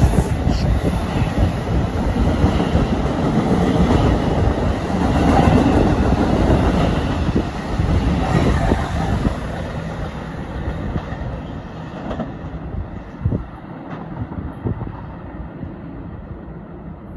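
NJ Transit passenger train of multilevel coaches passing the platform: loud rumble of wheels on the rails, dying away from about ten seconds in as the end of the train goes by.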